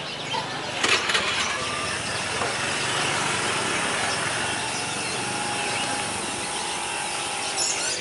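Motor scooter engine starting about a second in, then running steadily close by.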